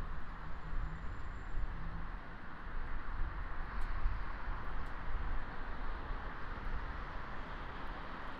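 Steady outdoor city background noise: a constant hiss over a low, uneven rumble, with a few faint clicks about four seconds in.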